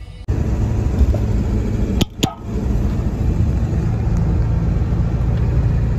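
Steady low road and engine rumble of a diesel pickup truck driving, heard from inside the cab. Two short clicks come about two seconds in.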